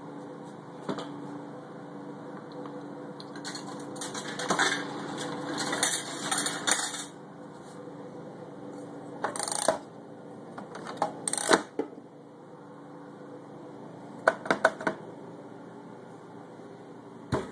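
Coins clinking and rattling through a soda vending machine's coin mechanism in several bursts, over a steady hum.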